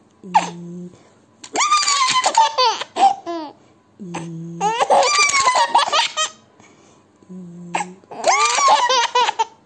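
A baby laughing in three bursts of high-pitched laughs that swoop up and down in pitch. Each burst comes after a short low hum.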